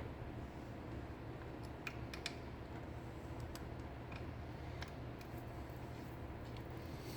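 Scattered light clicks and ticks of small metal parts and hand tools being handled, with a cluster about two seconds in, over a steady low hum.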